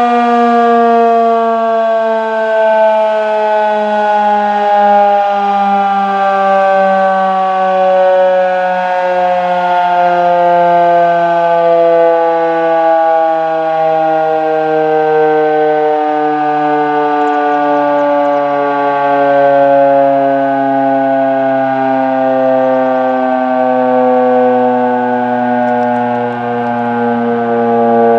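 Federal Signal Model 3 electromechanical outdoor warning siren sounding loud and steady during an alert test, its pitch slowly and evenly falling throughout.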